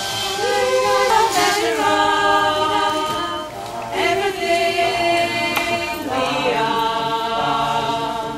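A cappella choir singing in harmony, holding long chords in phrases of a few seconds, with a brief break about four seconds in.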